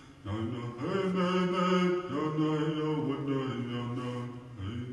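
Vocal chanting in long held notes that step up and down in pitch, broken by short pauses just after the start and near the end.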